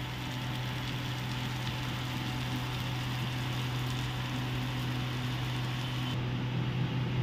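Sprouted chana, moong dal and vegetables sizzling steadily in a frying pan over a steady low hum.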